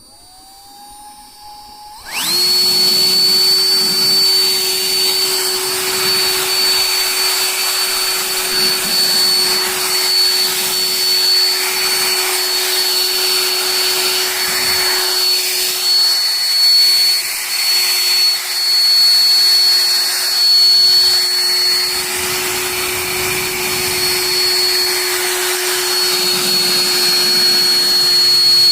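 Electric jet dry blower for drying cars spinning up with a rising whine, then about two seconds in jumping to full power: a loud, steady rush of air with a high whine.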